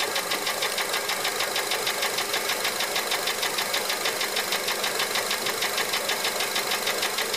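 2004 Honda Element's 2.4-litre i-VTEC four-cylinder engine idling with a rapid, even ticking knock. The owner traces the knock to piston slap in cylinder number 1, after a valve adjustment failed to cure it.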